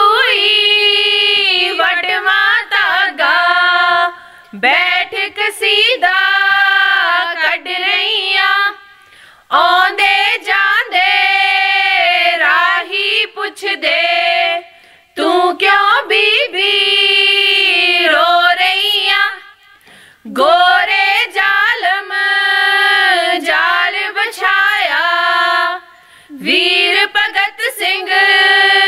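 Women singing a Punjabi folk song without instruments, in long held phrases of about five seconds with short breaks between them.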